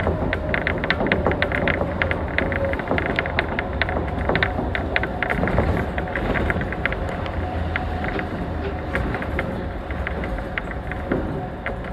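Running noise inside a rubber-tyred suspended monorail car travelling along its beam: a steady low rumble with frequent irregular rattling clicks and a faint steady whine.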